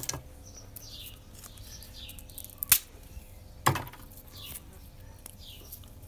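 Two sharp wooden knocks about a second apart as split sticks are handled and set down on a wooden deck, over faint bird chirps: short falling calls repeated several times.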